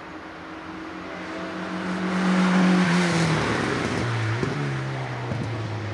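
Ford Fiesta race car's four-cylinder engine running at high revs, growing louder as it approaches and passes. About halfway through, its note drops to a lower, steady pitch as it goes away.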